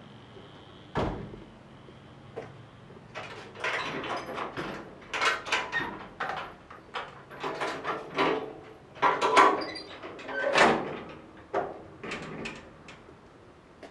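Metal clanks and rattles of a 1965 Ford F100 pickup's tailgate being unlatched and let down: a single knock about a second in, then a busy run of clanks from about three seconds in that trails off near the end.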